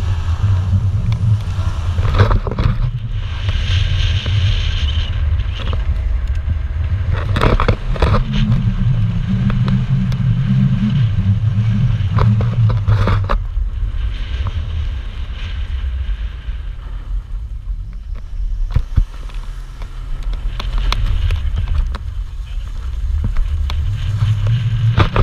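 Turbocharged Chrysler PT Cruiser's engine revving as the car spins donuts on a dirt field, its note rising and falling, with the tyres spinning and throwing dirt.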